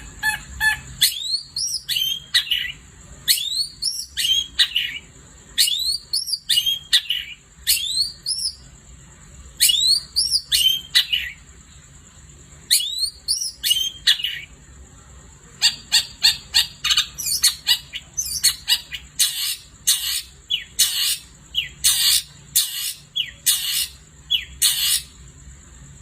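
Long-tailed shrike (cendet) singing a long, varied song: groups of rising, sweeping whistles repeated every second or two, then from about halfway a fast run of short, sharp chip notes.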